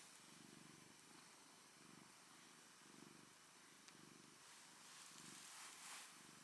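Cat purring softly, the purr swelling and fading in a steady rhythm of pulses with each breath.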